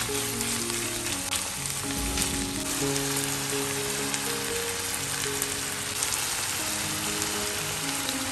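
Ground beef and chopped onions sizzling in hot oil in a frying pan, a steady crackling hiss. Soft background music with held notes plays underneath.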